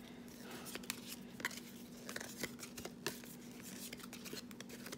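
Trading cards being flicked and slid one after another from the front to the back of a hand-held stack, giving light, irregular clicks and soft paper rustles.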